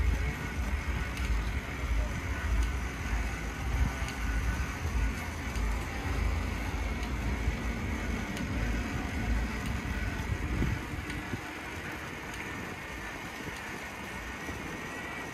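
A bicycle being ridden along a paved path, with wind buffeting the microphone in low uneven rumbles that die away about eleven seconds in, leaving a quieter steady hiss. A faint thin high whine runs underneath.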